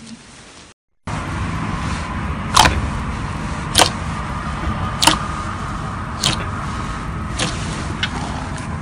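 Slime being handled, with sharp pops roughly once a second over a steady low hum.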